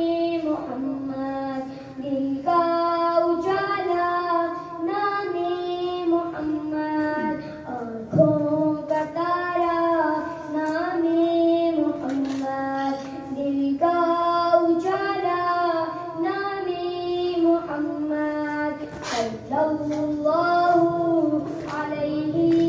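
A boy singing a naat, a devotional song in praise of the Prophet Muhammad, solo and without instruments, into a microphone played through a small loudspeaker. He sings melodic phrases with held notes and short breaks between them.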